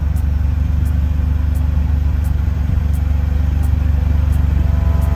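2007 MerCruiser 8.1 Horizon V8 engine running steadily. It is rattling and missing, a sign of the detonated number-one piston.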